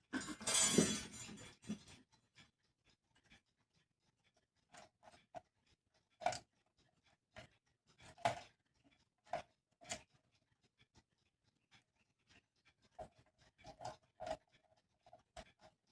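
Small metal clock parts and hand tools being handled on a workbench: a brief scraping rustle at the start, then irregular clicks and light metallic taps, some with a short ring.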